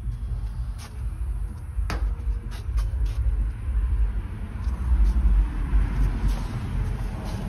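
Wind buffeting the microphone, a low uneven rumble, with a few light clicks about one, two and three seconds in.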